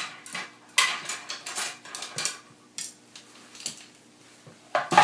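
Paintbrushes and painting gear being gathered and handled: a run of light clatters and knocks, several sharper ones about a second in and near the end.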